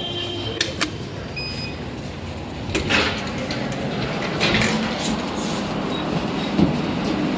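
Goldstar passenger lift machinery running, a steady rumble with several sharp clicks and rattles and a few brief high beeping tones.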